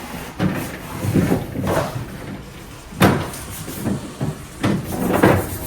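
A run of short knocks and clatters from household items or cupboard and fridge parts being handled and set down, about seven of them spread unevenly.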